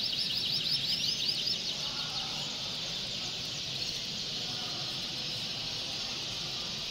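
A hall full of caged canaries singing and chirping together in a steady high chorus. One bird's fast trill of repeated rising notes stands out over the first second and a half.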